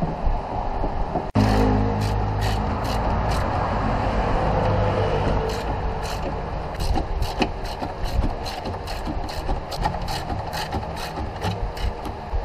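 Ford Windstar's 3.8 L Essex V6 engine running with a steady low hum. A fast series of sharp ticks comes in over it from about halfway.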